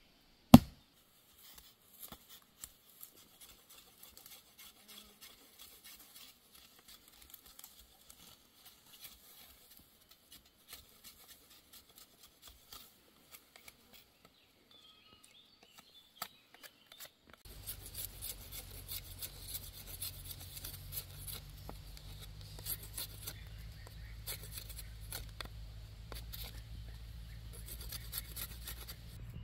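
One axe chop into wood about half a second in. Then a small hatchet blade shaves bark and wood from a stick in quick, repeated scraping strokes, faint at first and much denser from about halfway through.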